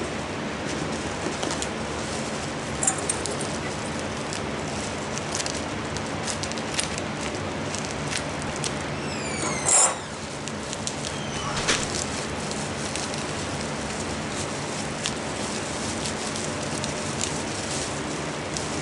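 Bubble wrap and packing being handled around hatching eggs: scattered crinkles and crackles over a steady hiss. About halfway through there is a short, loud squeak falling in pitch, and a fainter one follows a couple of seconds later.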